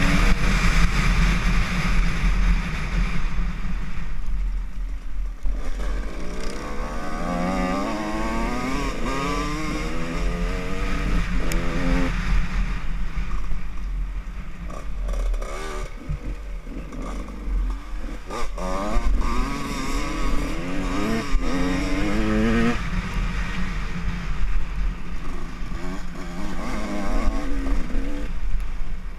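Dirt bike engine riding a rough trail, its revs climbing and falling back again and again as the throttle is worked, with heavy wind rumble on the microphone.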